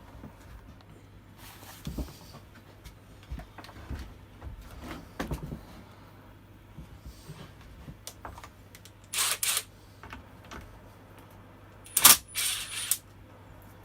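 Small clicks, knocks and rattles of a spanner and metal parts being handled as the bar and chain come off a top-handle chainsaw, with two louder, brief rattling scrapes about nine and twelve seconds in.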